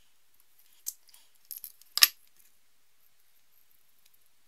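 Small hand tool work with pliers on thin wire: a few light clicks, then one sharp snap about two seconds in.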